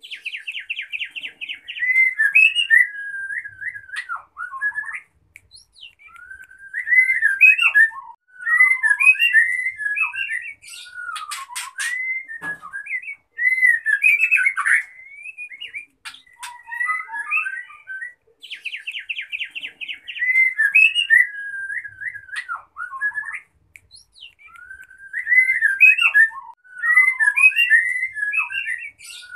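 Female white-rumped shama singing a run of varied whistled phrases, each a couple of seconds long with short gaps. Some phrases open with a fast rattling trill, and a few carry sharp clicking notes. This is the female's excited breeding call, used to raise a male's mating drive.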